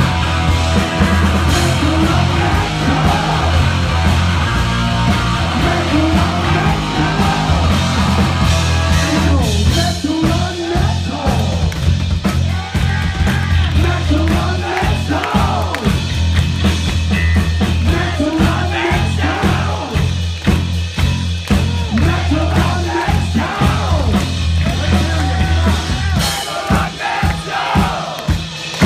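Heavy metal band playing live: distorted electric guitar and bass over drums, with sung and yelled vocals. The held low chords drop out near the end, leaving separate drum hits.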